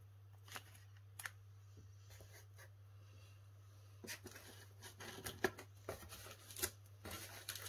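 Faint rustling and clicking of plastic-wrapped craft supplies being handled, a few isolated clicks at first, then busier from about halfway through, over a steady low hum.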